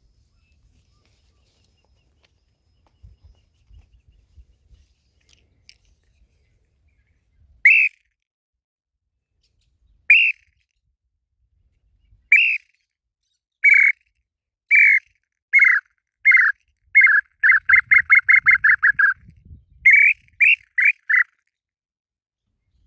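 Tataupa tinamou (inhambu-chintã) song: short downslurred whistled notes, first spaced a couple of seconds apart, then speeding up into a fast run, with a few more notes after it.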